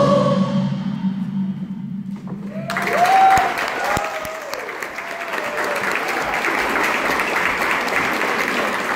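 A choir's final held chord dies away, then about three seconds in the audience breaks into applause with a few whoops, and the clapping carries on.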